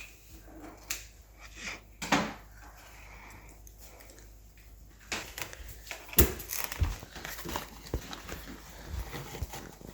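Scattered light clicks and rustling from handling the vacuum cleaner's plastic motorhead while clearing hair from its brush roll, busier in the second half, with the sharpest click about six seconds in.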